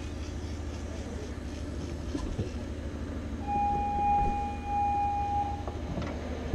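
A boat's engine running at a low idle, with a steady high beep about halfway through that lasts about two seconds and breaks once briefly.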